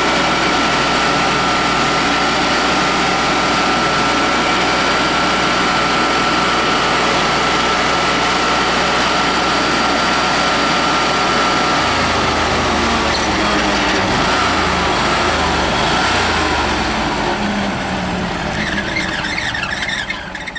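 Carlton SP4012 stump grinder running hard, its Kohler 27 hp V-twin gas engine and spinning cutter wheel giving a loud, steady noise with a high whine. About halfway through, the whine slides down in pitch and the engine note changes, and the machine grows quieter near the end.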